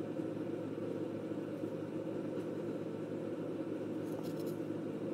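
A steady low hum, with a few faint light ticks about four seconds in.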